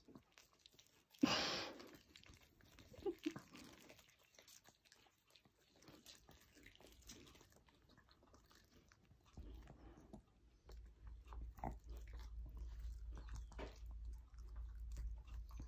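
Chihuahua chewing and licking at a big marshmallow: faint wet smacking and mouthing. About a second in there is one short, sharp, louder noise, and from about nine seconds in a low rumble sits underneath.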